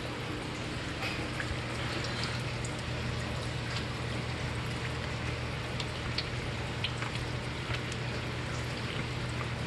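Water splashing and trickling steadily in a turtle tank, with scattered light ticks from turtles moving and feeding, over a low steady hum.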